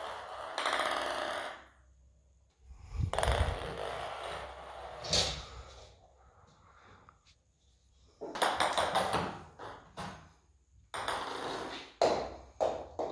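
Cats playing on a laminate floor: several bursts of paw scuffling and scrabbling lasting a second or two each, with sharp knocks as a small ball is batted about.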